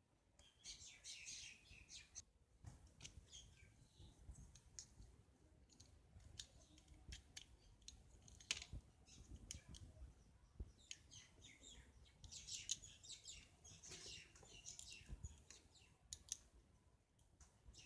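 Faint scattered clicks and small scrapes of a plastic rechargeable torch being handled and taken apart by hand, with two spells of quick high chirping, about a second in and again around twelve seconds.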